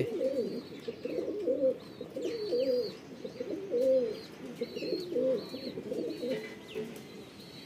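Domestic pigeons cooing, several birds' coos overlapping one another over and over.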